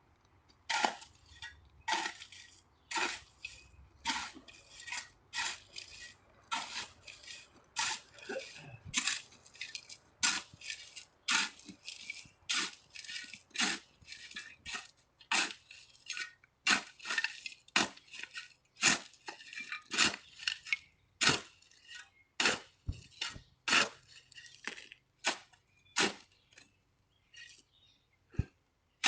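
A long run of sharp clinks and knocks of hard objects striking, about one or two a second at an uneven pace.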